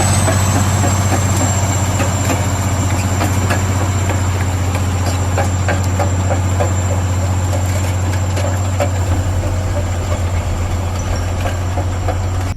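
Heavy diesel equipment running steadily under load, a deep engine drone with a thin high whine over it and scattered knocks and clatter of material being worked.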